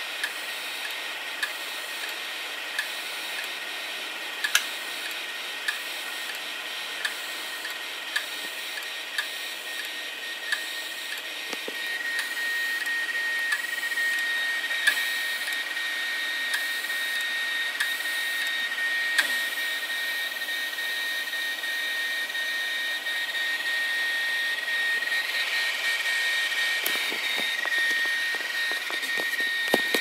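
Failed hard drives with their covers off, spinning with a steady high whine while a read/write head clicks about once a second, the repeated click of a failing drive. About twelve seconds in, the whine grows louder, and a few low knocks come near the end.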